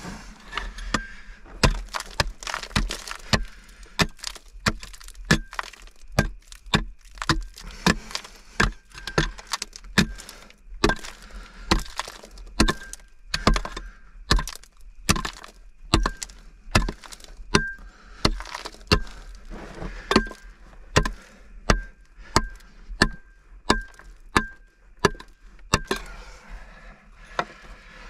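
A pick striking and chipping at a rock face, in a steady run of sharp blows about two a second, with rock cracking and breaking away.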